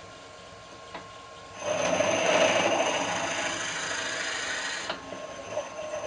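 Wood lathe running with a steady whine. About a second and a half in, a twist drill bit in the tailstock chuck starts boring into the spinning myrtle wood, a loud cutting noise that drops to a softer level near five seconds in.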